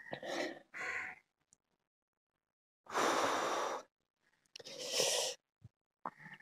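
A person huffing and sighing out hard through the mouth in four short breaths, the longest and loudest about three seconds in, after tasting a Jolo ghost-pepper chip; typical of reacting to the chili's burn.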